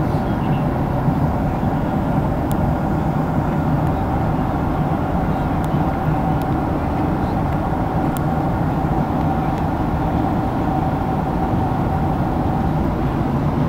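Steady airliner cabin noise in flight: the even rush of engines and airflow, heaviest in the low range, with a faint steady tone that fades out near the end.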